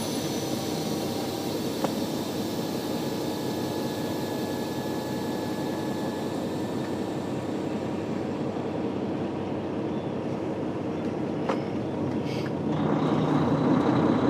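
Semi truck's diesel engine running, heard from inside the cab as a steady drone. It grows louder near the end.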